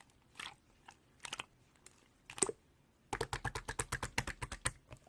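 A series of small sharp clicks and crackles: a few scattered ones at first, then a quick run of about eight a second lasting nearly two seconds.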